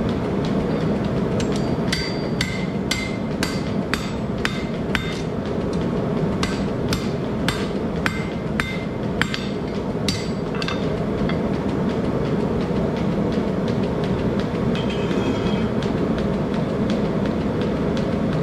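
Hand hammer striking a red-hot 3/8-inch square steel bar on the anvil to draw it out, two or three ringing blows a second, stopping about eleven seconds in. Under it, the steady roar of a propane gas forge.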